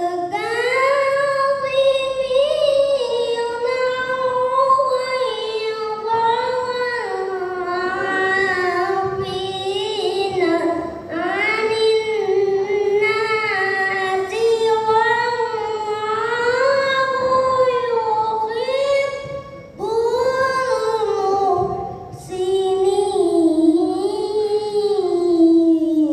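A young boy reciting the Qur'an in melodic tilawah style into a hand microphone: long, drawn-out, ornamented notes that rise and fall in pitch. Short pauses for breath come about eleven seconds in and twice more a little past the middle.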